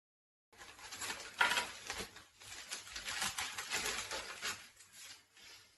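Parcel packaging rustling and crinkling as it is handled and opened, an uneven crackle of small clicks that begins about half a second in.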